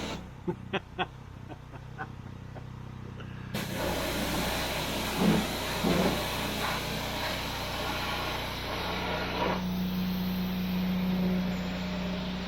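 A few sharp clicks, then, about three and a half seconds in, a pressure washer starts spraying with a loud, steady hiss.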